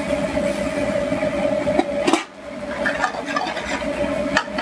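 A wooden spoon stirring scallops and shrimp in a stainless steel sauté pan, with sharp knocks of spoon against pan, the loudest about two seconds in. Under it runs a steady kitchen hum with a constant tone.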